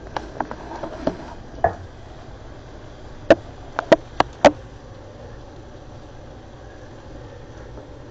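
Sharp clicks and knocks from things being handled at a countertop electric grill: a few scattered taps in the first two seconds, then a quick run of five louder clicks about three to four and a half seconds in, over a steady low hum.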